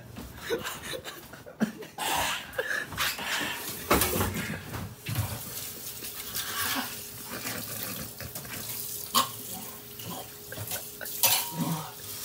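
Kitchen tap running into a stainless steel sink, the water splashing over hands held under the stream, with occasional knocks. The running water starts about two seconds in.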